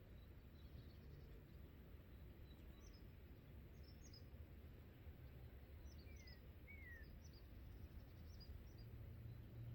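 Faint birds chirping, scattered high notes with two short falling calls a little past the middle, over a steady low rumble.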